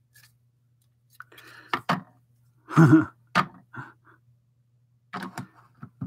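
LEGO plastic bricks clicking and knocking as they are handled and pressed onto a plate, a scattered series of short clicks with a heavier thump about three seconds in. A faint steady low hum sits underneath.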